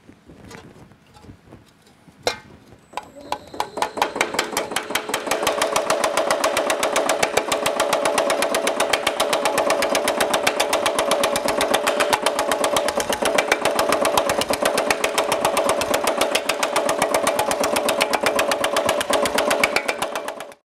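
Baileigh MH-19 reciprocating power hammer with small thumbnail shrinking dies, rapidly and evenly hammering a sheet-metal bowl with a steady metallic ring. It starts up about three to four seconds in, after a single sharp knock, and stops abruptly near the end.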